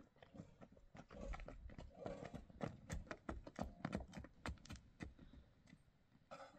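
Footsteps of two people walking on a dry, stony dirt path: a quick, uneven run of steps that thins out near the end.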